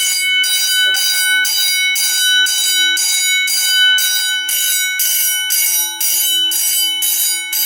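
Edwards 439D vibrating fire alarm bell ringing loudly in march-time coding, a steady clanging pulse about twice a second: the fire alarm panel is in alarm.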